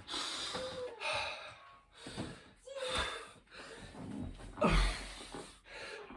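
A man breathing hard and gasping mid-burpee, in loud heavy breaths about once a second, winded from high-rep burpees. A low thud about five seconds in is the loudest sound.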